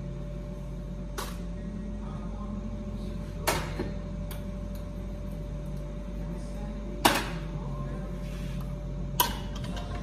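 Metal-on-metal knocks and clacks of an espresso portafilter and tamper being handled as ground coffee is tamped, a handful of sharp knocks with the loudest about seven seconds in, over a steady low hum.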